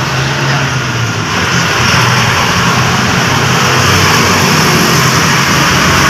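A vehicle engine running at a steady idle under a loud, even hiss, with no separate clicks or knocks.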